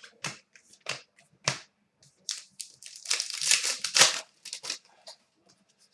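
Trading cards and plastic packaging being handled: a few short sharp clicks, then a burst of crinkling about three seconds in.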